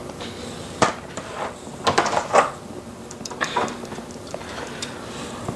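Plastic serving spoon and plastic and glass bowls knocking and scraping as fufu is dished out: a sharp knock just under a second in, then clusters of clattering around two and three and a half seconds in.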